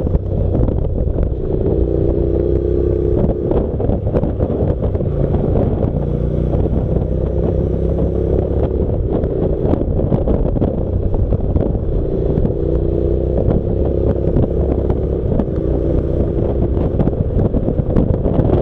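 Honda NC700's parallel-twin engine running on the move at a steady cruise, its note rising and falling slightly through the bends, with wind rushing over the bike-mounted microphone.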